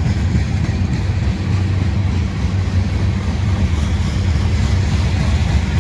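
CSX freight train rumbling steadily past, with a heavy low rumble and some wind on the microphone; no horn is sounding.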